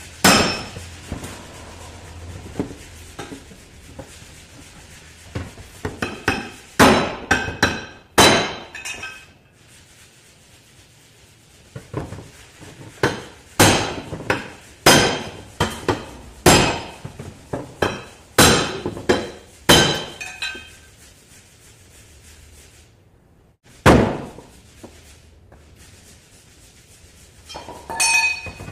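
A tool striking the sheet metal of a car door from inside, tapping out a dent: about fifteen irregular metallic knocks, each with a short ring. Some come in quick runs, others about a second apart.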